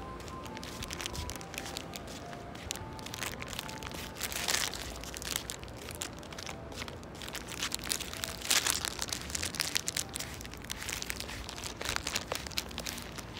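Footsteps on pavement and grass with rustling, crunching handling noise on the phone's microphone, loudest about four and a half and eight and a half seconds in. Over the first few seconds an ice cream truck's jingle plays faintly, a simple tune of single notes.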